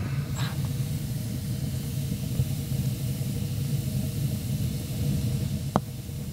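Wood fire burning in a small wood stove, a steady low rumble with a hiss over it. A single sharp click near the end.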